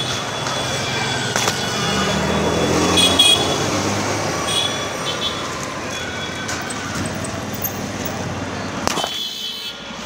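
Road traffic noise, with a motor vehicle passing louder about two to four seconds in.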